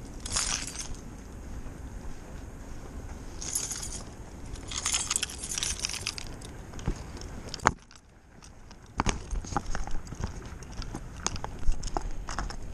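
Small metal objects jingling in three short bursts over a low outdoor rumble. A sharp click comes near the middle, then knocks and rumble from the camera being handled as a finger covers the lens.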